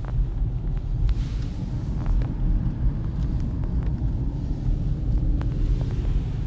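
Car driving, heard from inside the cabin: a steady low rumble of engine and road noise, with a few faint clicks and ticks.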